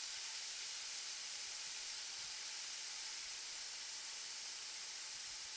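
Toy kitchen stove's electronic sizzling sound effect: a steady frying hiss.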